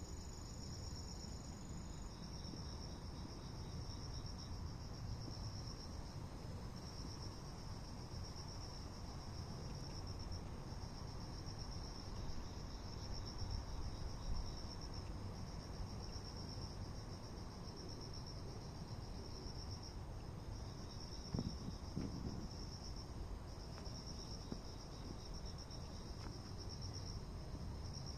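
Crickets chirping in long, evenly repeated high trills, each about a second long with short gaps, over a low steady rumble.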